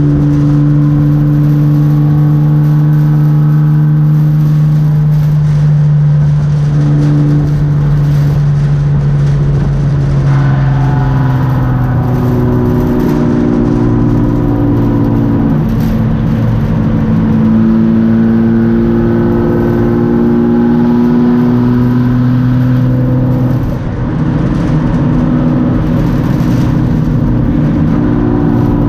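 BMW E36 race car's engine running hard, heard from inside the stripped, roll-caged cabin. It holds one steady pitch for about the first ten seconds, then the pitch shifts, climbs slowly and drops back several times as the driver works the throttle.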